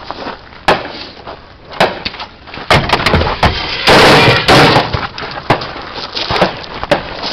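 A string of AR-15 rifle shots, unevenly spaced, with a quick, overloading run of shots about four seconds in.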